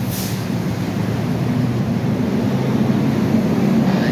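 Vehicle engine running steadily, with a short hiss right at the start; the drone grows slightly louder toward the end.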